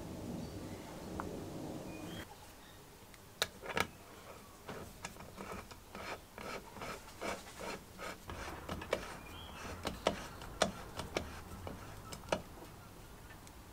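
Steel drill chuck being turned by hand onto the threaded spindle of a Leytool Major hand drill: a soft rubbing of fingers on the knurled chuck at first, then a long run of light, irregular metal clicks and ticks.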